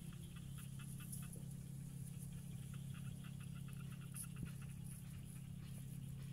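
Field ambience: a steady low hum under a fast, even run of small chirps, about five a second, with a constant high-pitched hiss above.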